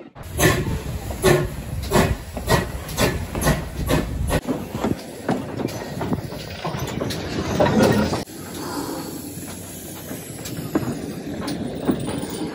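Steam locomotive moving slowly at close range: a quick run of sharp exhaust beats and clanks, about three a second, over a heavy hiss of steam. About eight seconds in the sound drops abruptly to a quieter steady hiss with an occasional knock.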